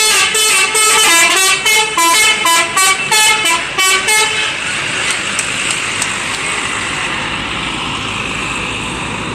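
Bus 'telolet' horn, a set of multi-tone air horns, playing a quick jingle of short notes that stops about four seconds in. It is followed by a steady loud rush of noise.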